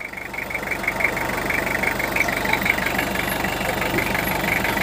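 Toyota 5L four-cylinder diesel engine idling, heard from just above the open engine bay: a steady, fast diesel clatter that grows a little louder over the first second. It is an even idle, which the seller calls very smooth-running.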